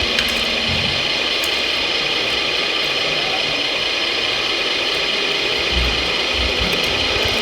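Small electric motors and gearing of radio-controlled model construction machines running with a steady high whine, with a few low knocks.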